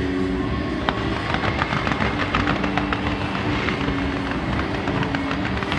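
Aerial fireworks crackling and popping in rapid, dense succession from about a second in, over a steady wash of background noise. Music with long held notes plays underneath.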